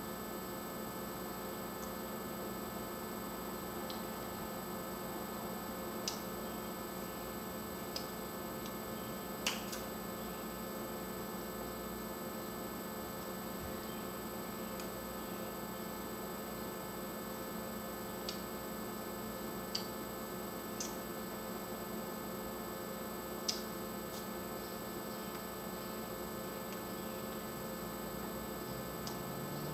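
Steady electrical mains hum made up of several fixed tones, with a few faint, sharp clicks scattered through.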